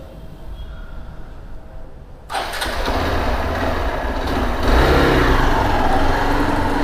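Hero Xpulse 200 single-cylinder motorcycle engine starting a little over two seconds in, then running with a steady low rumble.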